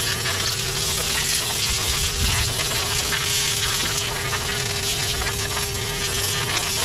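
Ventrac 4520 tractor running steadily: a constant drone with a steady hum and a broad hiss over low rumble.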